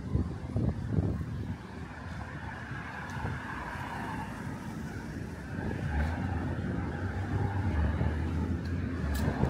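Road traffic: a car passing along the street, its engine and tyre noise growing louder from about halfway through. Wind gusts buffet the microphone near the start.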